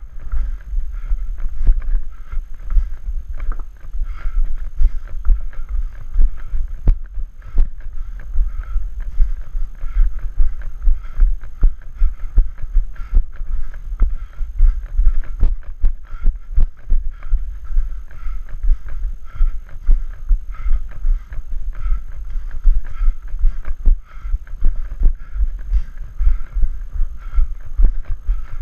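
Trail runner's footfalls jolting a body-mounted action camera: an even rhythm of dull low thumps, about three a second, over a low rumble of wind on the microphone.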